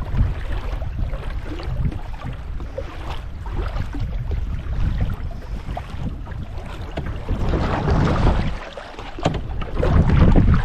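Canoe being paddled, with paddle splashes and water sounds at the hull under a heavy rumble of wind on the microphone that grows louder near the end.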